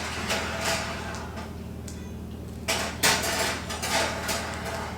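Kitchen clatter: cookware and utensils handled in a few short knocks and scrapes, over a steady low hum.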